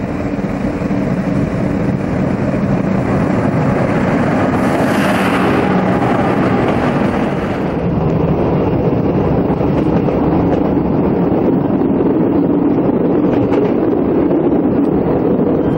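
P-class diesel-electric locomotive approaching with its engine running steadily, a hiss swelling about five seconds in. About eight seconds in this gives way to the steady running noise of the moving train heard from inside a passenger carriage, with a few faint ticks near the end.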